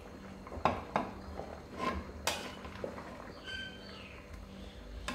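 Metal ladle clinking against an aluminium pot and a ceramic bowl as soup is ladled out: several sharp knocks in the first two and a half seconds.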